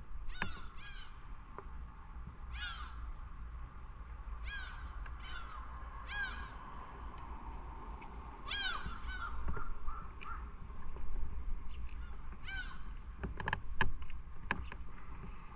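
Birds calling: short arched cries, singly and in quick runs of two or three, over a low steady rumble, with a few sharp clicks near the end.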